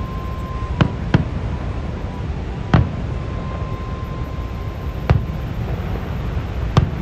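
Aerial fireworks shells bursting: five sharp bangs, irregularly spaced a second or two apart, over a steady low rumble.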